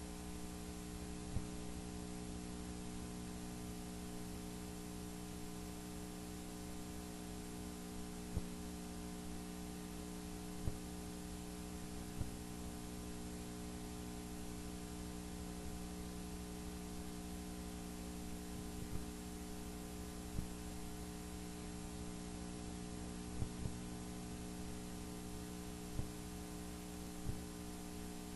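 Steady electrical mains hum in the sewer inspection camera's audio, a stack of even tones with a faint hiss, broken by a dozen or so faint, short clicks scattered through.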